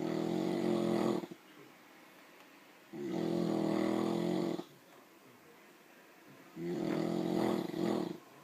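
Deep, rhythmic snoring: three long, pitched snores about three and a half seconds apart, with quiet breaths in between.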